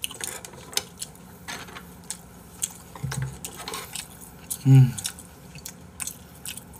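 Eating at a table: scattered clicks and taps of utensils against food containers, with some chewing. A short vocal sound comes faintly about three seconds in and louder about four and a half seconds in.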